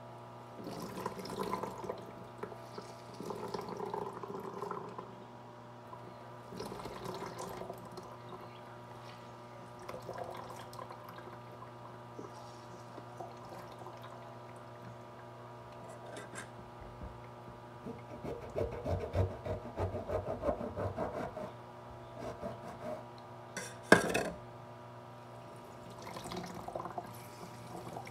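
Orange juice dripping and pouring through a mesh sieve into a container as a hand presses and rubs the fruit pulp against the strainer, in several rustling spells with a run of quick rubbing strokes past the middle. A single sharp knock near the end is the loudest sound.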